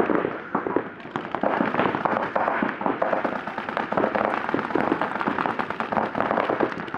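Several paintball markers firing in rapid strings at once, a dense run of sharp overlapping pops.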